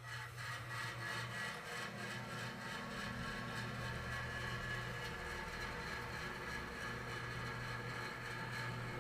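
A machine running steadily with an even whirring hum.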